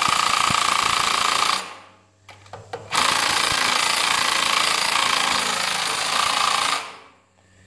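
Porter-Cable 20-volt cordless impact wrench hammering as it spins a Champion portable generator's engine over in place of the broken pull rope. It runs in two long bursts, stopping for about a second and a half in between. The engine does not catch.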